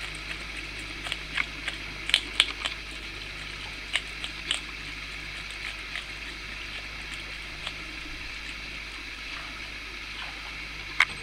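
Giant otter chewing a fish: irregular sharp crunches, several in quick succession about two seconds in and a loud one near the end, over a steady hiss of water.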